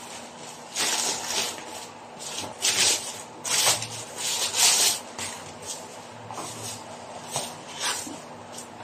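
Plastic packaging rustling and crinkling as a black plastic shipping pouch is pulled open and a bubble-wrapped package is drawn out of it, in irregular bursts, the loudest near the middle.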